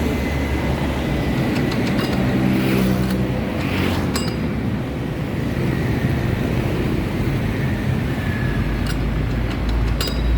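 Single-cylinder 173F diesel engine of a Firman FTL 900 HD mini tiller, 5.2 hp, running steadily after being pull-started. A few sharp clicks sound over it.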